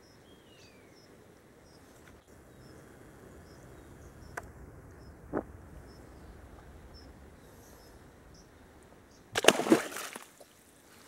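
Faint high chirps and a couple of small clicks over quiet pondside background, then about nine seconds in a sudden loud burst of splashing and jostling, about a second long, as a New Zealand longfin eel surges up at the pond edge and the camera is jerked back.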